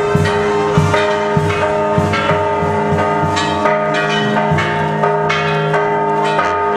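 Church bells pealing: many rapid, irregular strikes, their ringing tones overlapping into a continuous clangour.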